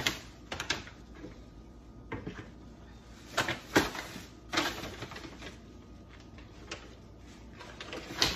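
Paper grocery bag rustling and crinkling, with irregular clicks and knocks from kitchen tongs, as live crabs are handled inside the bag.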